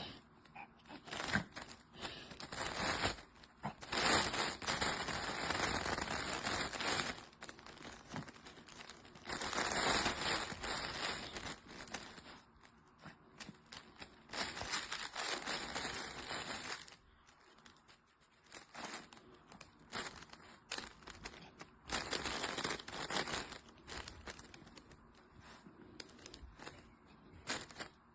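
A dog rummaging in a fabric chip-bag snuffle toy and pulling out the treat-filled chips: rustling noise in bursts of a few seconds with short quiet pauses between them.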